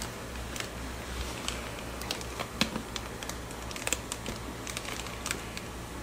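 Plastic fish-shipping bag crinkling and crackling as it is handled and lifted out of a cardboard box, in irregular sharp crackles over a steady low hum.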